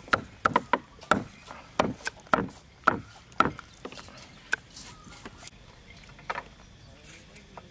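Meat cleaver chopping through raw pork belly onto a thick wooden chopping block: about ten sharp knocks at roughly three a second, then a few scattered ones near the end.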